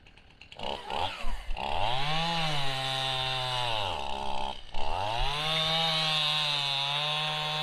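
Chainsaw engine revving up and held at high speed, dropping back around four seconds in, then revving up again and holding steady.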